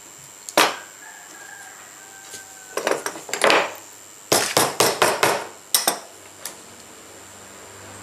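Hand tools knocking on a wooden workbench, a small hammer among them: one knock about half a second in, a cluster around three seconds, then a quick run of about five taps, with a last knock near six seconds. A steady faint high whine runs underneath.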